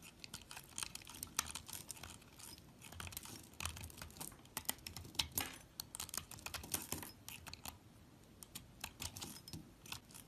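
Knife cutting into a bar of soap: an irregular run of crisp clicks and crackles, with a few louder snaps around the middle.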